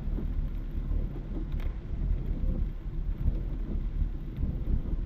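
Heavy rain beating on a car's windshield and roof, heard inside the cabin over the steady low rumble of the car driving on a wet expressway.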